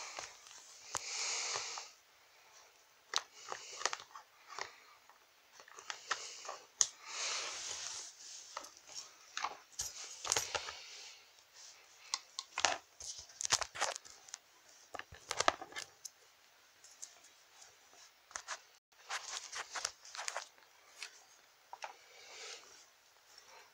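Handling noise from toy figures and a plastic toy car being moved about by hand: irregular clicks and knocks with short rustles of fabric.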